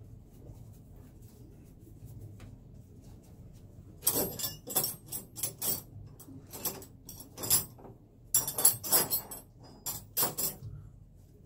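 Metal tools and fittings clinking and rattling in a quick, irregular run of sharp knocks, starting about four seconds in and stopping about a second before the end.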